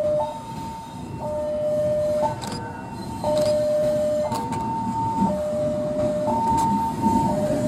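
Railway level-crossing warning alarm sounding, two electronic tones, high and low, alternating about once a second. Under it, the low rumble of a diesel locomotive moving slowly toward the crossing with a container flatcar, growing a little louder near the end.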